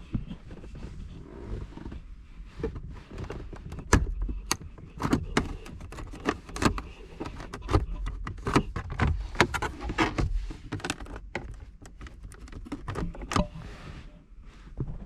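Plastic interior trim panel being pried and worked loose with a panel removal tool: irregular clicks, snaps and knocks of plastic over a low rubbing and handling rumble, the sharpest snap about four seconds in.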